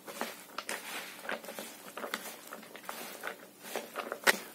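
Hands squeezing and kneading slices of white bread into boiled rice and pearl barley in a bowl: soft, irregular squelching and crackling.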